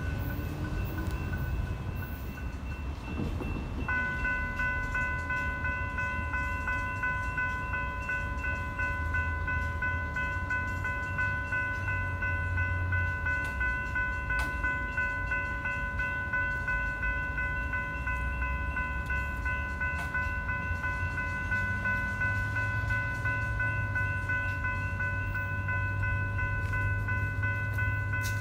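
Railroad grade-crossing warning bells ringing continuously from about four seconds in. Underneath is a low rumble that grows near the end as a Coaster commuter train approaches the crossing.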